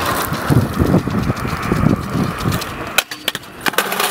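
Stunt scooter wheels rolling over rough asphalt as the rider pushes along. Then sharp clacks, about three seconds in and again near the end, as the rider falls and the scooter clatters onto the ground.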